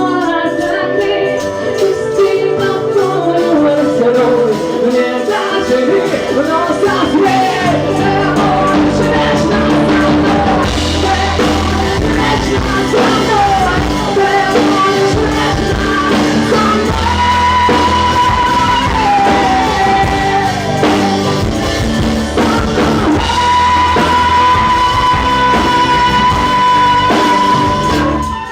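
Live song performance: voices singing over instrumental accompaniment, building to a long held high note near the end that then stops.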